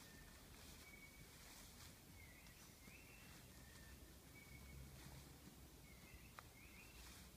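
Near silence: faint hiss with a few faint short high chirps every second or so, some gliding upward, and a single faint click about six seconds in.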